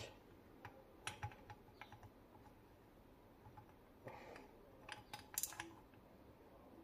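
Faint clicks and taps of small carburetor parts being handled and snapped into place on an Edelbrock 1406 carburetor during a rebuild: a few sharp clicks about a second in, a short rubbing sound around four seconds, and another cluster of clicks just after five seconds.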